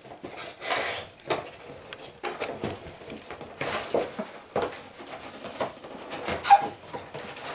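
Cardboard toy box with a clear plastic window being handled on a table: irregular scraping, rustling and light knocks of cardboard and plastic as it is tilted, set down and its flap is opened. The sharpest knock comes near the end.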